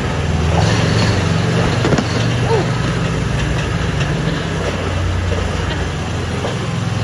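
Off-road vehicle's engine running steadily as it drives along a rough cave track, a low constant hum.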